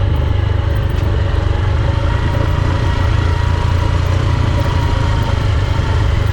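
Honda XR150 single-cylinder four-stroke motorcycle engine running steadily while riding a rough dirt track, with a continuous low rumble.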